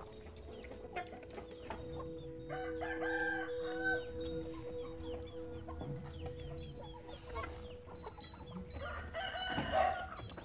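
Chickens clucking in a farmyard, with a rooster crowing about three seconds in.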